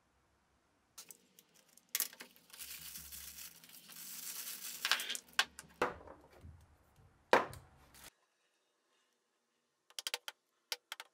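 Crinkling and tearing of wrapping handled for several seconds, with scattered clicks and one sharp knock about seven seconds in, as black plastic ball knobs are handled on a wooden bench. A quick run of light clicks comes near the end.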